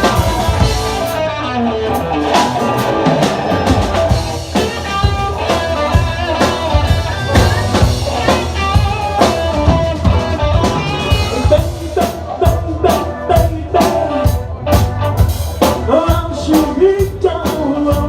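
Live blues-rock band playing an instrumental passage: drum kit and guitar, with no sung lines.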